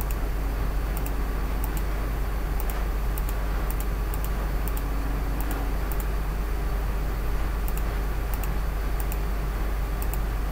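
Computer mouse clicking at an irregular pace, about one or two short clicks a second, as points are placed one by one. A steady low electrical hum and hiss from the recording chain runs underneath.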